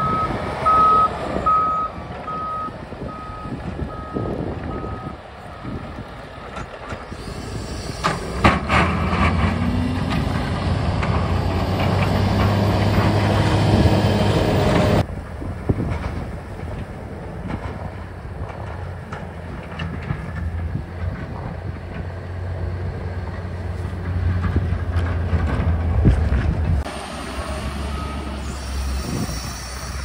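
Snow plow's reversing alarm beeping steadily at one pitch for the first few seconds as it backs up. Then its engine runs steadily under load while clearing snow, with a burst of clatter about eight seconds in.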